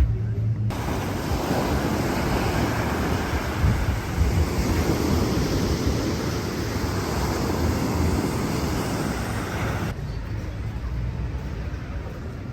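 Sea surf washing onto a beach, a steady rushing noise that starts abruptly about a second in and cuts off abruptly near the end.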